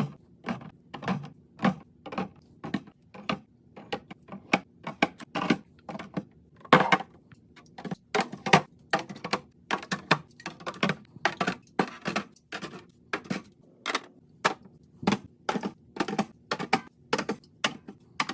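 Hard items being handled and set down while a fridge is organized: an irregular run of sharp clacks and knocks, about two a second.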